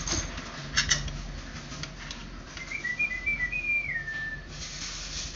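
A person whistling a short phrase of a few high notes that ends on a falling glide. Earlier come a few light clicks from the plastic dispenser being handled against the wall.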